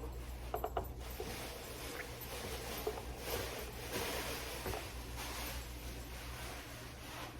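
Small plastic toy parts being handled and fitted together: faint scattered clicks and rustling over a steady low hum.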